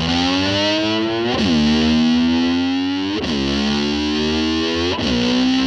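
Distorted electric slide guitar imitating a motorbike revving: the pitch drops sharply and then glides back up, three times.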